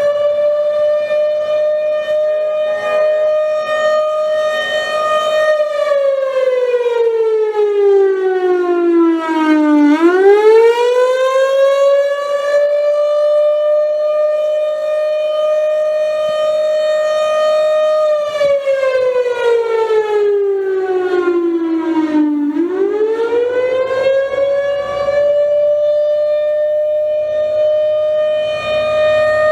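Federal Signal Thunderbolt 1000 outdoor warning siren sounding the attack signal. The loud tone holds high, slides down over about four seconds, then swoops quickly back up and holds. This happens twice.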